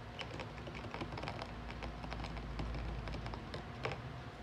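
Small steel pieces clicking and tapping lightly and irregularly as they are handled in a container for a coffee etching bath.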